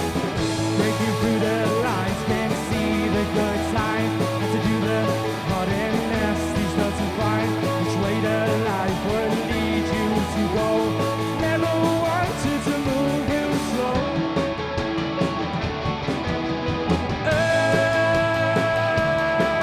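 Indie rock band playing an instrumental passage on electric guitars and bass, the bass moving to a new note every second or two. About fourteen seconds in the highest sounds drop away for a few seconds, and near the end a long held guitar note rings over the band.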